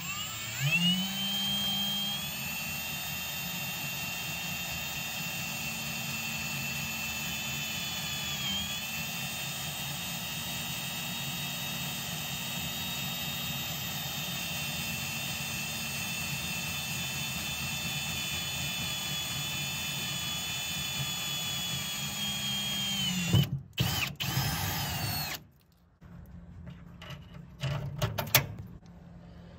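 Milwaukee cordless drill running steadily for about twenty seconds as it drills a mounting hole for the steering-column floor plate through the cab floor, with a brief dip in speed partway through. A second short burst of drilling follows, then a few quiet handling clicks near the end.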